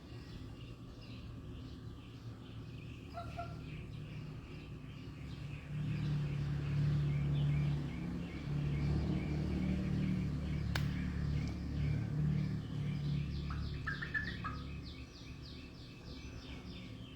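Birds chirping in quick repeated notes, with a few short separate calls. A low steady hum swells in the middle and fades again, and there is a single sharp click partway through.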